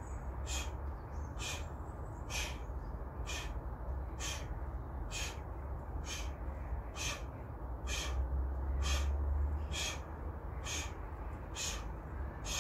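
Short, forceful breaths repeating about once a second in time with seated knee tucks, over a steady low rumble.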